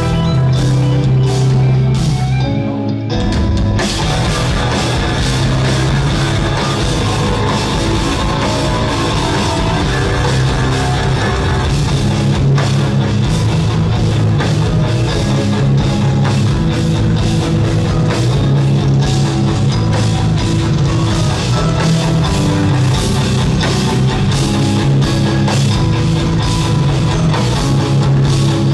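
Live instrumental progressive metal from two eight-string electric guitars and a drum kit, played loud with dense, rhythmic drumming. The band drops out briefly about three seconds in, then comes back in full.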